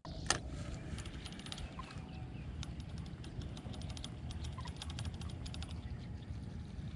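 Open-air marsh ambience: a steady low rumble of wind on the microphone, with one sharp click just after the start and a scatter of faint quick ticks from about two and a half seconds in.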